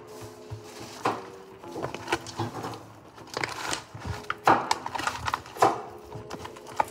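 Kitchen handling sounds: irregular knocks, clatter and scraping or rustling, loudest twice in the second half, over soft background music with sustained notes.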